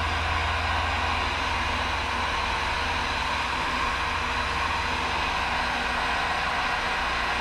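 Handheld electric heat gun running steadily, its fan blowing hot air with an even whir and low hum, as it shrinks solder-seal heat-shrink connectors over spliced motorcycle headlight wires.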